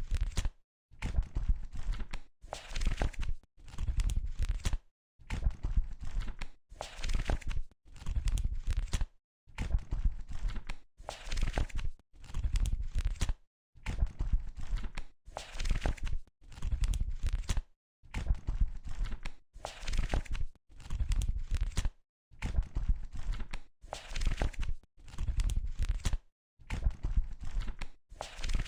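Book pages turned one after another, about one a second, each turn a short papery rustle with a soft low thud under it. Between turns there are gaps of dead silence, slightly longer after every few pages.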